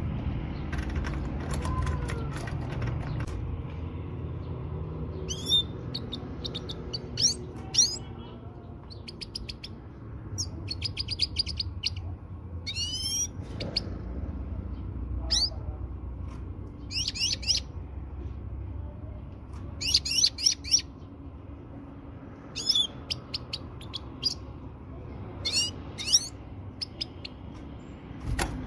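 Female finch calling in short, high chirps and quick rising-and-falling twitters, in scattered groups a second or several seconds apart, over a steady low background rumble. These are the female's calls used to stir a male finch into breeding mood.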